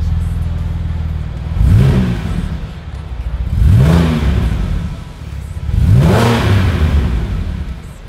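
Porsche 981 Cayman S flat-six idling and blipped three times, each rev rising and falling back to idle about two seconds apart. It runs through an ARMYTRIX valved exhaust with the muffler valve closed.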